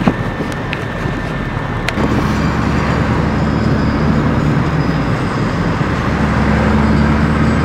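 Car driving with the sunroof open: steady road and wind noise, joined about two seconds in by a low steady engine hum.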